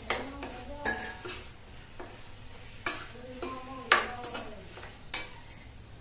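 A metal spatula stirring vegetables in a kadhai, clinking sharply against the pan about five times, with a faint sizzle of frying underneath.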